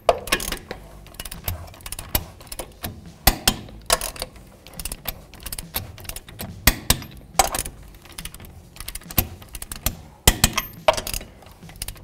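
Torque wrench and socket clicking and clinking on a wheel's lug nuts as each nut is torqued to 80 foot-pounds in turn. The sharp clicks come irregularly, with a louder group near the end.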